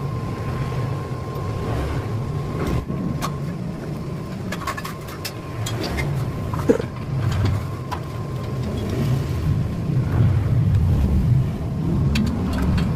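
A steady low mechanical rumble with a thin steady tone over it, and scattered light metallic clicks and taps as a steel chain sprocket is fitted onto a gear-reducer shaft and a wrench is put to it.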